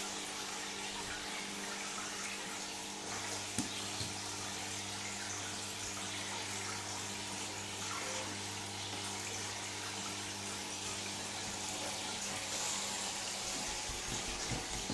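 Steady bubbling and splashing of aquarium aeration at the water surface, with a low steady hum underneath.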